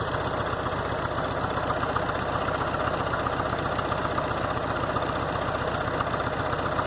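An engine idling steadily, with an even, unchanging firing rhythm.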